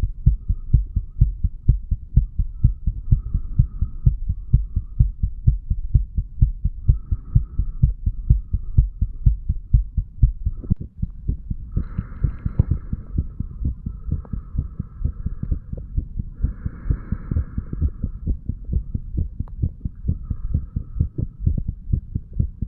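A man's heartbeat recorded from the chest wall, a few hours after heavy drinking: a steady, unbroken run of low lub-dub thumps. A faint hiss comes and goes over it, strongest about twelve and seventeen seconds in.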